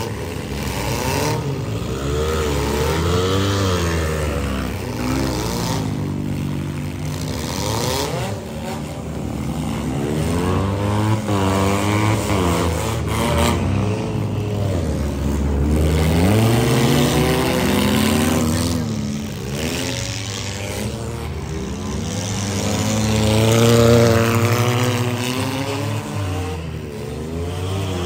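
Several demolition derby cars' engines revving up and down at once, pitches rising and falling as the drivers accelerate and reverse, with a few sharp crashes of cars ramming each other around a third and halfway through.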